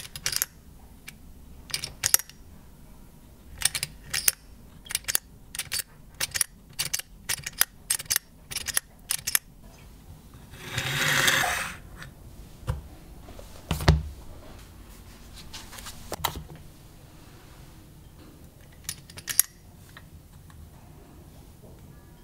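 Small clicks and taps of a vintage 1960s perpetual flip calendar being handled, its date card flipped and its dials turned, coming thick and fast for the first ten seconds and a few more later. About eleven seconds in, a scrape that rises and falls as the calendar is slid across a wooden desk, then a knock.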